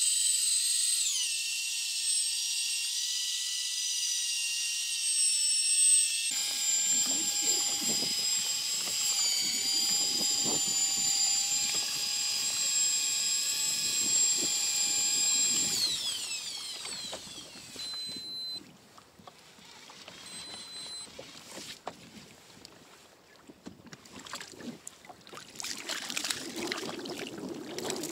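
Daiwa Seaborg electric fishing reel winding in line with a hooked fish on: a steady high motor whine that drops in pitch about a second in, changes tone around six seconds in, and winds down with a falling pitch at about sixteen seconds. After it, scattered knocks and water splashing.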